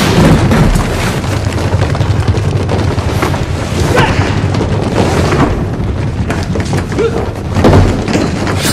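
Loud, dense action-film soundtrack with a steady low rumble and several heavy booming hits.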